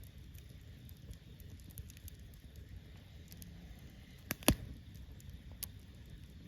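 Wood campfire burning in a folding fire pit, with faint scattered crackles over a low steady rush and one loud sharp pop about two-thirds of the way in.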